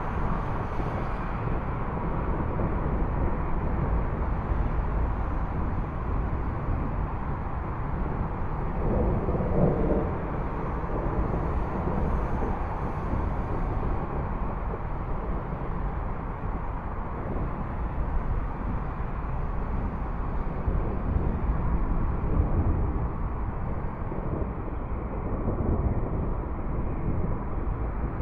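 Approaching thunderstorm: a steady low rumbling noise with no sharp claps, swelling slightly about ten seconds in and again past twenty seconds.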